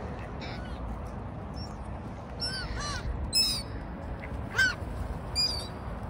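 Birds calling: a run of short, arching cries from about two seconds in, the loudest near the end, over a steady low rumble.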